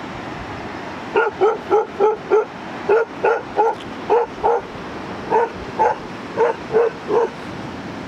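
A dog barking in a steady run of about fifteen short barks, two to three a second, starting about a second in with a brief pause partway through.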